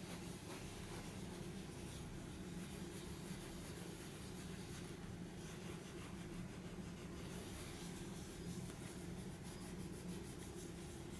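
Cloth rubbing over the leather shell of a WW1 pickelhaube helmet as it is cleaned, a soft, steady scrubbing.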